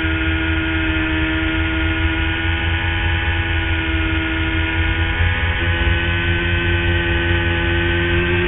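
Superbike engine heard through an onboard camera, held at steady high revs through a long corner. Its pitch rises slowly near the end as the throttle is opened.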